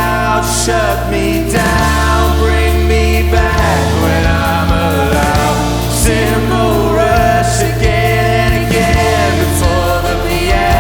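Band playing a song live without sung words, long low bass notes held under layered pitched parts, with occasional cymbal hits.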